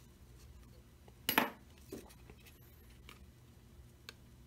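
A sharp clack about a second in, then a lighter tap and a few faint ticks over quiet room tone: the smartphone and its removed glass back cover being handled and set down on a hard work surface.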